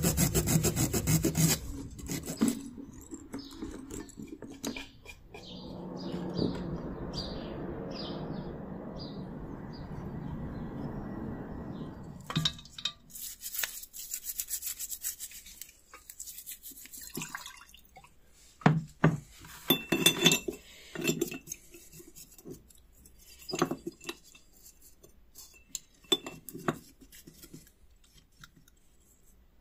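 Sandpaper rubbing on a small metal doorbell part at first, then a steady low noise for several seconds. After that come scattered clinks and scrubbing of a brush against a glass dish.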